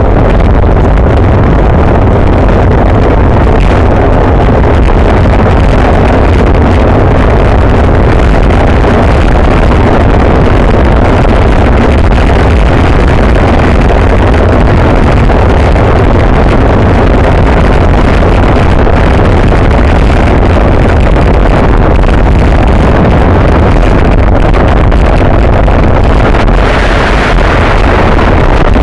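Loud, steady wind noise buffeting a bicycle-mounted camera's microphone as the bike rides at racing speed.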